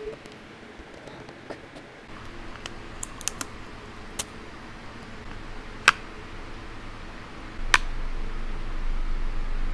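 Scattered sharp clicks and small plastic taps as a DJI Osmo Pocket 3 handheld gimbal camera is handled, lifted out of its case, its protective film peeled off and the camera switched on. A low steady hum comes up about two seconds in and grows louder near the end.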